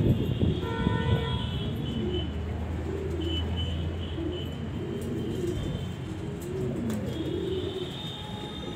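Domestic pigeons cooing, a run of short rising-and-falling coos repeating about once a second.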